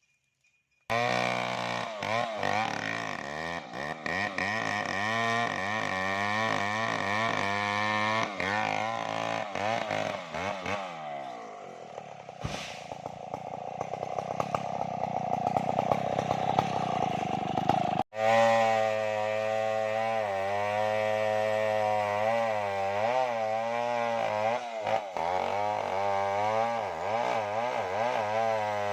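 Stihl MS070 two-stroke chainsaw cutting wood under load, its engine pitch wavering up and down as the chain bites. It starts abruptly about a second in and breaks off for an instant about two-thirds of the way through before running on.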